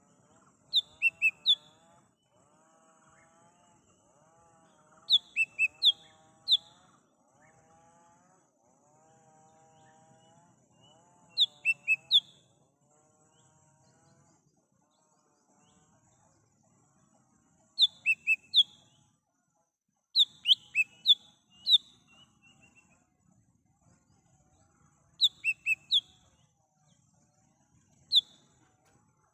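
Cucak hijau mini leafbird calling in the wild: groups of three or four sharp, high chirps, repeated every few seconds. A fainter, lower wavering warble runs under the first dozen seconds.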